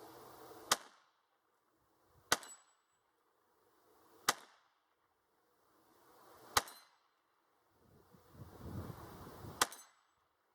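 Five single shots from a Taurus TX22 .22 LR semi-auto pistol, fired one at a time a second and a half to three seconds apart. A couple of them are followed by a brief high ring from a steel plate target being hit.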